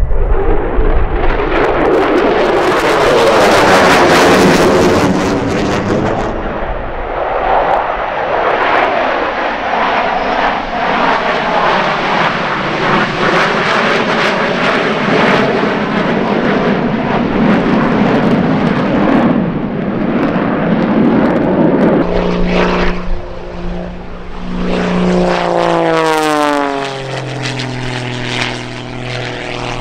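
Thunderbirds F-16 fighter jets passing in formation: loud jet noise with the swishing, phasing sweep of a fly-by, strongest a few seconds in. About 22 seconds in, the sound changes to an aerobatic propeller plane's engine, its pitch stepping up and down as it maneuvers.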